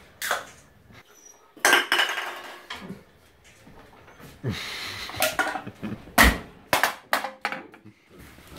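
An aluminium beer can clattering on a tiled floor: a series of sharp knocks with short scraping, rattling stretches as it is knocked about and rolls over the tiles.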